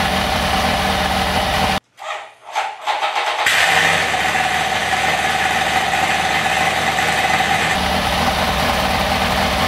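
Freshly overhauled Rotax 912 ULS flat-four aircraft engine running without a propeller just after its first start, running rough with its carburettors out of sync. About two seconds in, the sound drops out for a moment, then the engine comes back.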